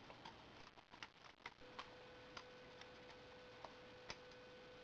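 Cheap chrome-painted balisong's handles and blade clicking faintly as the knife is rolled over in the hand. The clicks are sharp and irregularly spaced.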